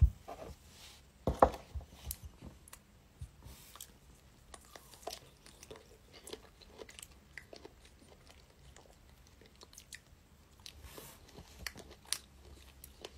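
Fresh strawberries being bitten and chewed close to the microphone: scattered small bites and chewing clicks with short quiet gaps between them.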